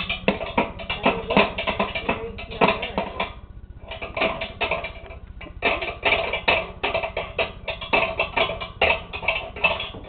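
Metal cutlery and the dishwasher's wire rack clinking and clattering as a baby's hands rattle them. The strikes come quick and irregular, several a second, with two short pauses near the middle.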